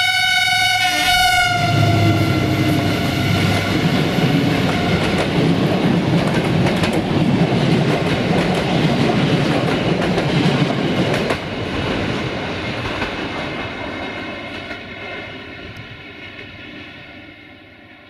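Locomotive horn blowing loud at close range, its chord dropping slightly in pitch as the locomotive passes and dying away within the first few seconds. Then the locomotive and its passenger coaches rush past with wheels clicking over the rail joints, and the noise fades steadily as the train moves away.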